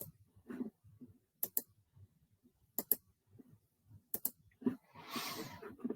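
Sharp clicks in close pairs, about every second and a half, like a computer mouse or keyboard, with a short hiss of noise about five seconds in.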